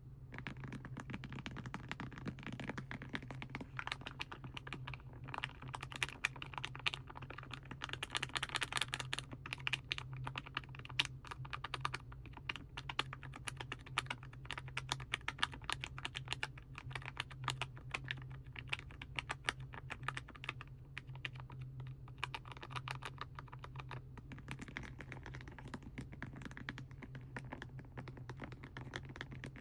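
Rapid, irregular light tapping on plastic paint packaging, like typing, over a steady low hum.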